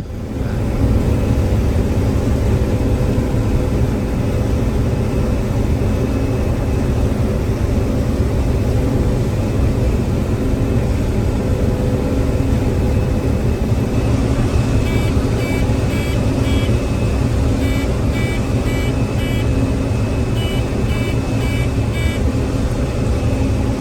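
Combine engine running steadily, heard from the machine. Over the second half a warning alarm beeps in repeated short groups: the low-fuel warning.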